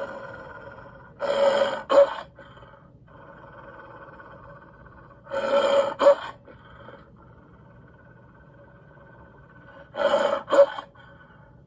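Cartoon wolf vocal sound effects: three short growling snarls about four seconds apart, each ending in a sharper, louder burst, over a faint steady soundtrack hum.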